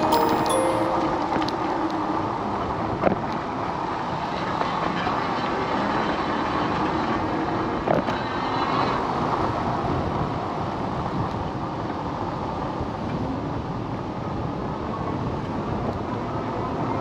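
Steady rushing of wind and tyre noise from a moving Aventon Adventure e-bike, with two short sharp clicks about three and eight seconds in.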